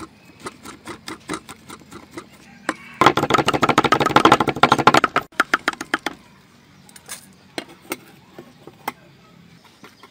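Cleaver chopping fresh red chilies on a chopping board: steady knocks about four a second, then a loud, very fast run of chops for about two seconds, then slower scattered strikes.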